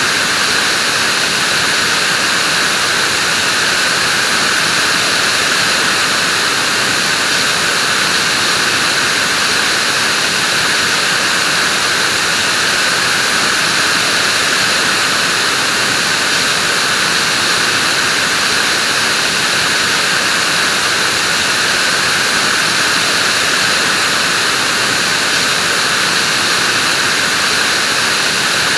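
Vacuum cleaner running steadily, a constant loud whooshing hiss with a faint steady whine in it.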